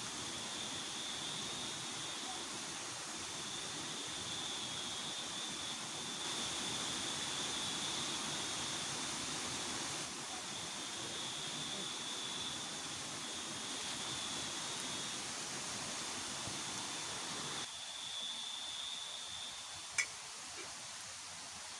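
Steady rushing of a river, with a high insect drone coming and going over it. The rushing drops abruptly near the end, then a single sharp click.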